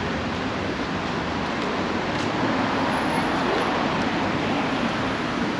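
City road traffic: cars passing on a wide avenue, a steady hum of tyres and engines that swells a little midway as a car goes by.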